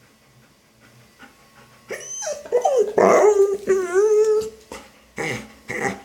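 Golden retriever 'talking': a long, wavering whining grumble that starts about two seconds in and holds one pitch, followed by a few short calls near the end. These are the talkative noises of a dog that doesn't want to be at the vet.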